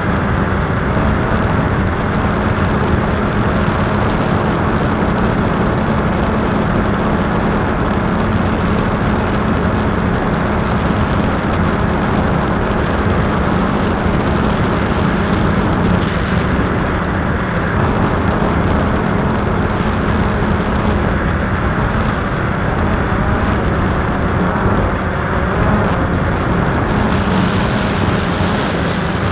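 Multirotor drone's motors and propellers running steadily, a constant hum with a loud rush of wind over the onboard camera's microphone.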